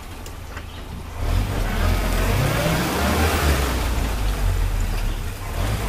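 Land Rover engine running and pulling as it crawls along an off-road trail; quieter for about the first second, then the engine picks up with a rising pitch and holds.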